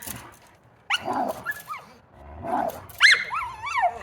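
Large dog vocalizing in short calls that bend up and down in pitch, about four of them, the last one longer and wavering.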